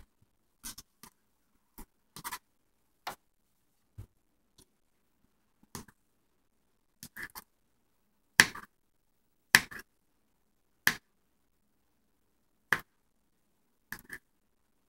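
Knife blade chopping down on a plastic cutting board: single, unevenly spaced knocks, about one a second, some much louder than others.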